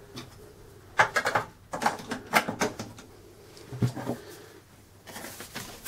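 Several light, sharp plastic clicks and knocks, in small clusters about a second in, around two seconds and near four seconds: the cash register's plastic printer and battery cover being handled.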